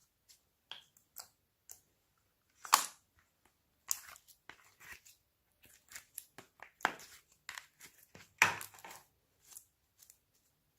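Hands squishing and stretching slime, making irregular sticky crackles and pops, with two louder crackling bursts, one about a quarter of the way in and one about three-quarters in.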